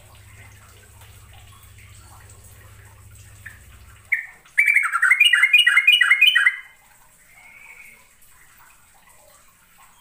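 Yellow-vented bulbul singing: a short note about four seconds in, then a loud bubbly phrase of rapid, repeated notes, about four a second for two seconds, and a softer note a second later. A low hum runs under the first four seconds and stops.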